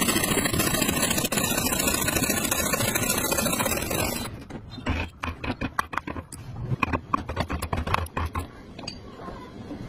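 Saw cutting into a hardwood block, a dense steady sawing noise that stops about four seconds in. After it come scattered sharp taps and clicks as a chisel is worked into the cut.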